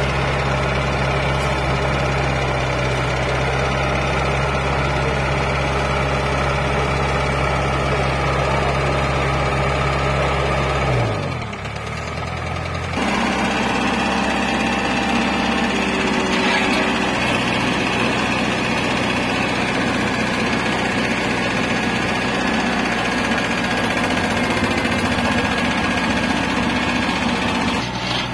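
Diesel engine of a Hanta F1740C mini asphalt finisher running steadily under working load. About eleven seconds in its speed drops and it winds down briefly, then the engine is heard running steadily again.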